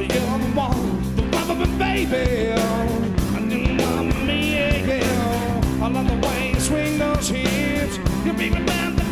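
Rock band playing live: electric guitars, bass guitar and drums driving a steady rock beat.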